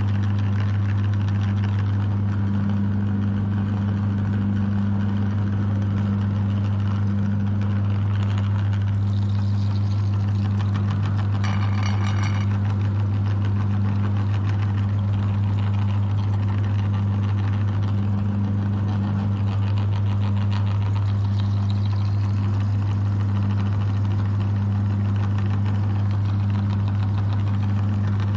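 Electric meat grinder running with a steady low motor hum. About twelve seconds in, a brief high-pitched squeal sounds over it for about a second.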